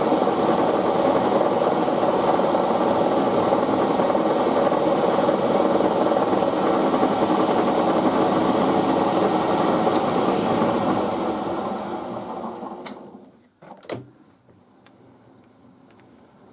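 Milling machine running steadily, then switched off and spinning down to a stop, followed by a few sharp clicks.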